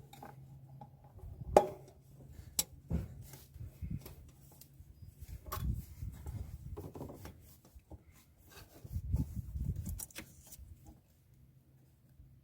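Hands turning a hose clamp on the air intake's silicone hose and intake pipe: scattered metal and plastic clicks and knocks with rubbing. A sharp click about a second and a half in is the loudest.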